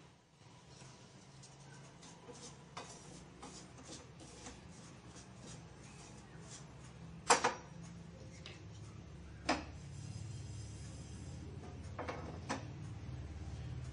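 Wooden spatula stirring dry semolina in a stainless steel saucepan: light scattered scrapes and clicks of wood on steel, with two sharper knocks about seven and nine and a half seconds in. A low steady hum runs underneath.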